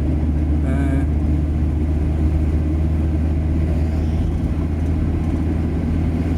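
Car engine and tyre noise heard inside a moving car's cabin: a steady low drone.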